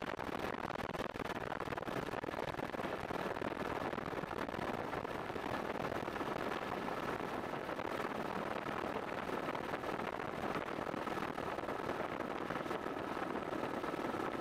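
Steady helicopter noise from the filming helicopter: a dense, unbroken rush of rotor and engine sound with a faint steady whine above it.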